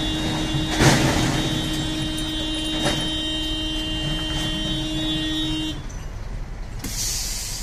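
A vehicle engine idling, heard from inside the cab, with a steady tone held for about six seconds that stops suddenly. A sharp knock comes about a second in, and a short hiss near the end.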